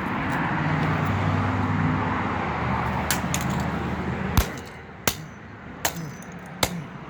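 A passing motor vehicle's engine and tyre noise, which fades away a little over four seconds in. Then come four sharp clicks or knocks, a bit under a second apart.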